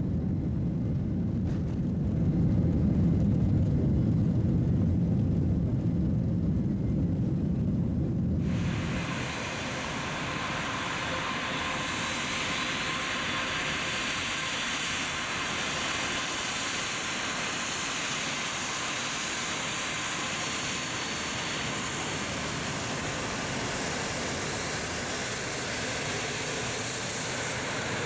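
A deep rumble cuts off abruptly about eight seconds in. It gives way to the steady whine and hiss of an Airbus A330-300's Rolls-Royce Trent 700 turbofan engines at low power as the airliner taxis past.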